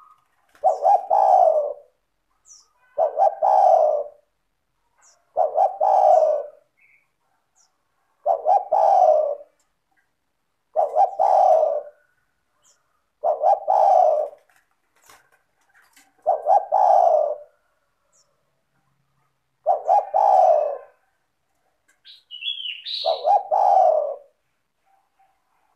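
Spotted dove (tekukur) cooing over and over, one coo phrase about every two and a half seconds, about ten in all. Near the end a short, higher chirp rises over one of the phrases.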